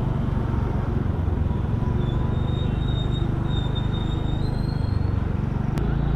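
Motor scooter's engine running steadily under light throttle, with road and wind noise on the camera's microphone. A single sharp click comes near the end.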